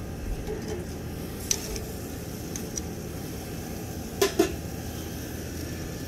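Two sharp metallic clinks about four seconds in, with a lighter one earlier, from metal being handled at a barbecue grill. A steady low outdoor rumble runs underneath.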